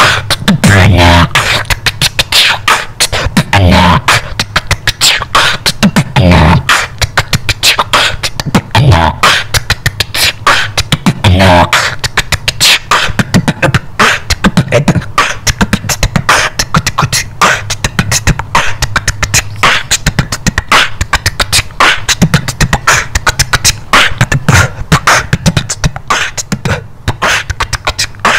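Solo beatboxing with a hand cupped over the mouth: a fast, dense run of percussive mouth sounds. A few wobbling pitched bass notes come in over the first twelve seconds.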